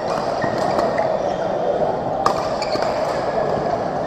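Badminton hall ambience: steady crowd chatter under racket strikes on shuttlecocks, with one sharp hit about two seconds in and fainter hits from the courts around it. A few short high squeaks of shoes on the court floor come and go.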